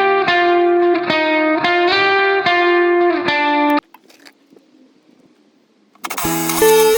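Background guitar music of plucked notes at an even pace. It breaks off about four seconds in, pauses for about two seconds, and comes back loudly near the end.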